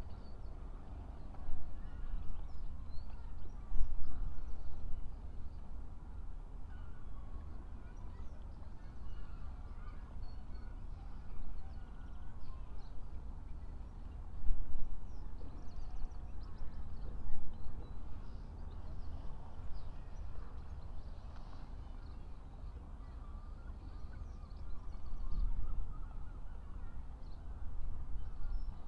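Birds calling on and off over a harbour, over a low, gusting rumble of wind on the microphone.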